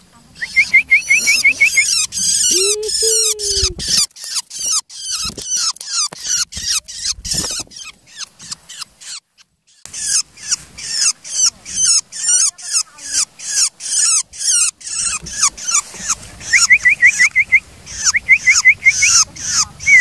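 Young long-tailed shrike calling over and over, harsh high notes several a second, with a few quick trills and a short lull about halfway through.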